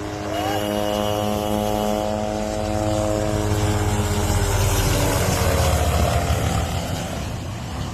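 Helicopter rotor and engine running, a pitched drone that slowly drops in pitch while a low rumbling rush of noise builds, loudest about five to six seconds in, as the drone fades.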